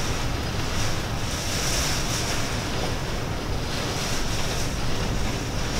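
Heavy rain pouring down, a steady dense hiss that swells and eases slightly every second or so.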